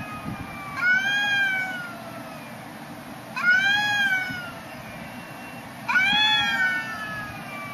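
Domestic cat yowling in a standoff with another cat: three long drawn-out yowls, each rising and then sliding down in pitch, about two and a half seconds apart.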